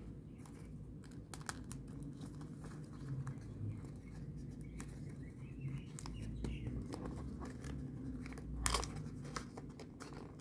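Folded paper origami units being handled and slotted together: light paper rustling and crinkling with scattered small clicks and taps over a low room hum, with one louder rustle near the end.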